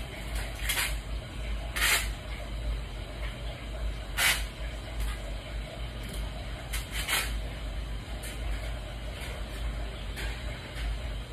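A handful of short hissing or rustling strokes, about five, from someone handling things by hand, over a steady low hum.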